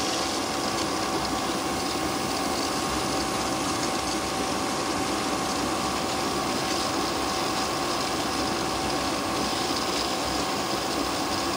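BWD5-40 stainless steel variable-speed booster pump running steadily near its top output, pumping about 8,000 litres an hour at 2 bar while drawing 1.4 kilowatts, still fairly quiet. A steady whine sits over an even rushing noise.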